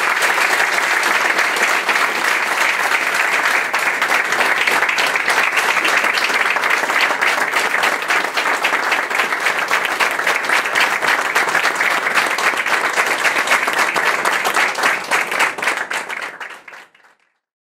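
A room full of people applauding, dense and steady, thinning out near the end before stopping abruptly.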